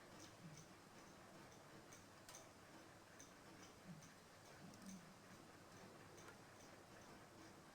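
Near silence with faint, fairly regular ticking, about two to three ticks a second.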